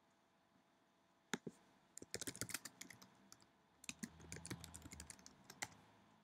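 Typing on a computer keyboard: a couple of key presses, then two quick runs of key clicks with a brief pause between them.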